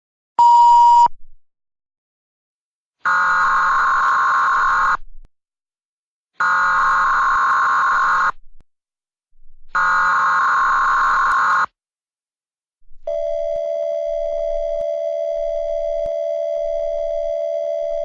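Simulated Emergency Alert System signal: a short loud beep, then three identical buzzy data bursts of about two seconds each, like an EAS header, then a steady alert tone that starts about thirteen seconds in and holds.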